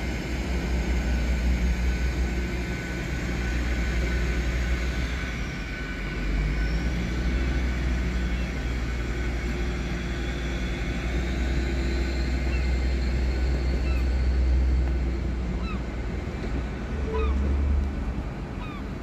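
LNER Azuma class 800 bi-mode train pulling away, its diesel engines giving a steady low rumble. Above the rumble a high whine falls in pitch and then rises again.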